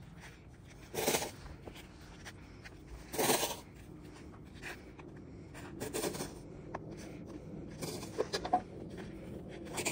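Snow shovel scraping across snow-covered paving as snow is scooped up, two loud scrapes about two seconds apart in the first half, then shorter, softer scrapes and knocks.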